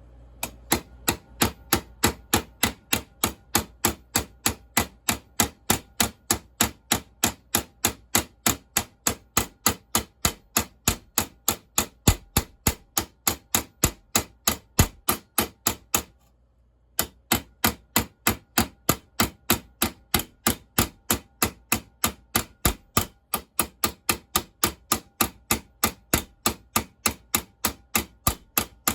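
Ball peen hammer tapping steadily on the rivet heads of a chainsaw bar's new sprocket tip, peening the rivets down, about three ringing metal strikes a second. The tapping pauses briefly about sixteen seconds in, then carries on at the same pace.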